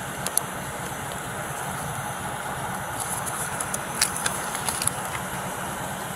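Steady hum of an idling vehicle, with a cluster of short clicks and paper rustles about three to five seconds in as a sheet of paper is handled at the car window.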